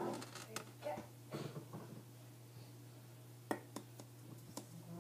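Faint rubbing and a few light clicks and taps from a makeup brush being worked in a powder compact, over a steady low hum.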